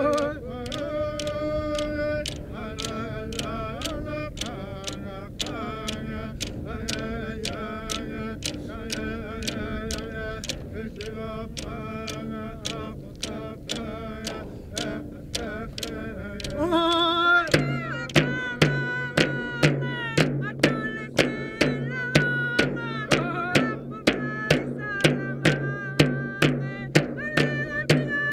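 Inuvialuit drum-dance song: large frame drums struck with sticks in a steady, even beat under a group of men and women singing. About 17 seconds in, a voice slides upward and the song becomes louder and fuller.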